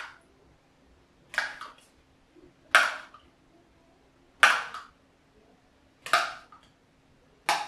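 Metal spoon clinking against a small saucepan as syrup is scooped out and drizzled over a sponge cake: five short clinks, about one every second and a half.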